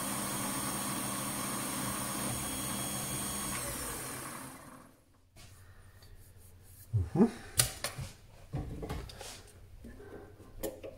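Mini lathe running, its chuck spinning while a carbide insert turns an acetal bar on auto feed, with a steady hum and whine; about three and a half seconds in the motor is switched off and the spindle spins down over a second or so. After that come scattered light clicks and knocks as the part is handled and digital calipers are put on it.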